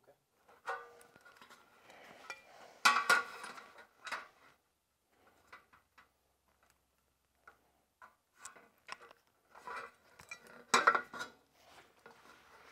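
Sheet-metal window trim piece rattling and clanking as it is picked up and handled, in two main bursts of clatter about 3 and 11 seconds in, with lighter knocks and taps in between.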